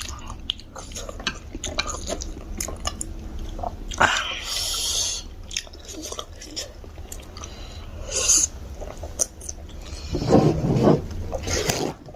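Close-miked chewing and wet mouth clicks of people eating pork momos, with a short noisy rush about four seconds in and a brief low vocal sound near the end.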